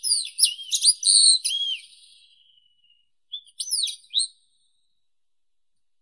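Wallcreeper calling: a quick run of high, thin whistled notes that glide up and down, fading out after about two seconds. A shorter phrase follows about three and a half seconds in.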